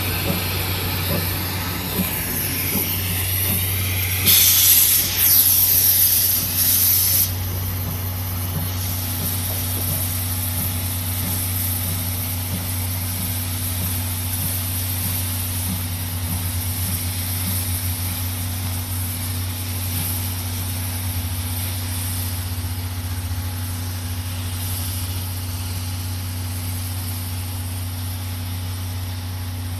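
Steam locomotive C11 325 letting off a loud burst of steam hiss for about three seconds, starting about four seconds in, as it moves off slowly. A steady low hum runs underneath throughout.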